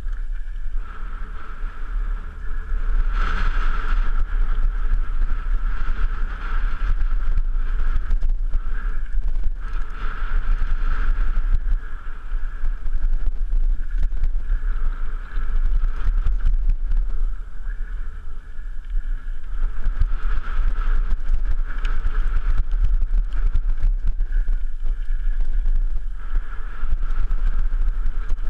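Mountain bike riding fast down a rocky gravel trail, heard from a helmet-mounted camera: heavy wind rumble on the microphone, tyres crunching and the bike rattling over loose stones, with a steady high hum that fades and returns.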